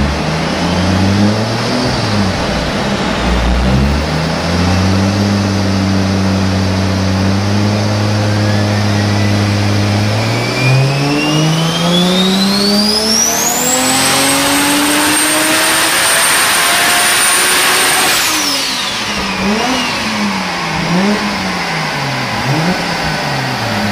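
Single-turbo Toyota Aristo 2JZ straight-six on a chassis dyno: held at steady revs, then a full-throttle pull with the revs climbing for about eight seconds and a high turbo whistle rising with them. The throttle shuts near the end, the revs fall away, and the engine is blipped a few times.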